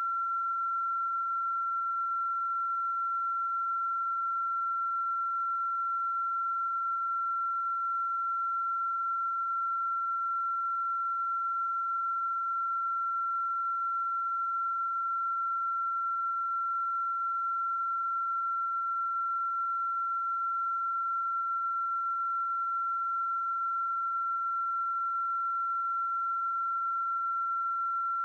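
A steady, unbroken pure tone at a single high pitch, with no change in pitch or loudness. This is the 'weird eew sound' heard on the Merapi feed.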